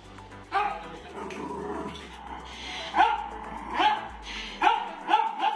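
Small dog barking excitedly in short, sharp yaps while it jumps up at a person: one bark about half a second in, then five more over the last two and a half seconds, several in quick succession.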